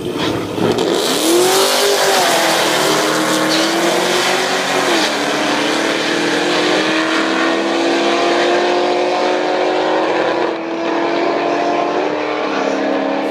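Car launching hard from the drag-strip start line and accelerating down the track, its engine climbing in pitch and dropping back at upshifts about two and five seconds in, then pulling in one long rise.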